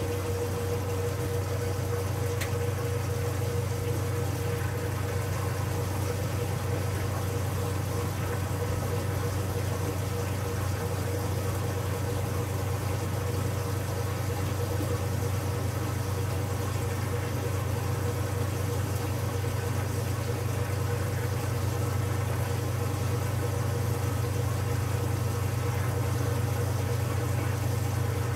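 Whirlpool Supreme belt-drive washer's motor and drain pump running with a steady low hum and a faint steady whine while the wash water is pumped out of the tub.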